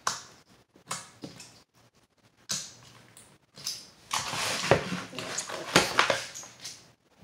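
Homemade slime being poked and squished by hand: a few short squelches, then a longer, denser run of squishing about four seconds in.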